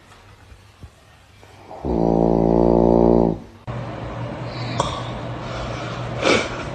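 A loud, low, pitched snore lasting about a second and a half, coming about two seconds in after a quiet pause. A little later the sound cuts abruptly to a steady noisy background broken by two sharp clicks.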